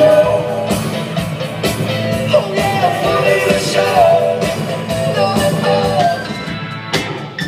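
Band music with a singer and a steady beat; the singing stops about six seconds in.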